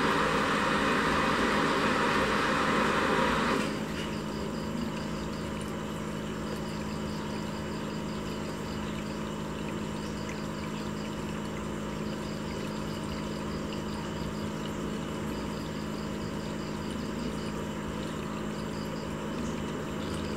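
Aquarium filter pump running with a steady low hum and the trickle of moving water. A louder rush of water in the first few seconds cuts off suddenly, leaving the quieter hum and trickle.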